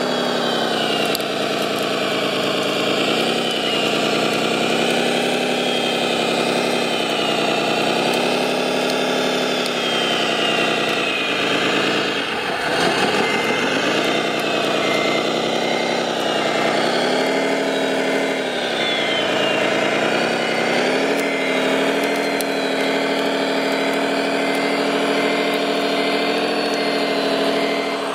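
Engine sound of a radio-controlled Caterpillar D9 model bulldozer working in mud, rising and falling in pitch every few seconds like a diesel under changing throttle. From about halfway, a run of even high beeps sounds alongside it.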